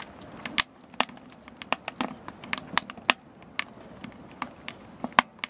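Wood fire crackling and popping in the open firebox of a Winnerwell wood-burning tent stove, split logs burning, with sharp irregular pops a few times a second.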